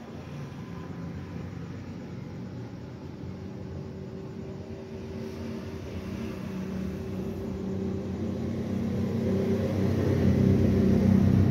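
Steady low mechanical hum with a few held tones, growing louder over the last few seconds.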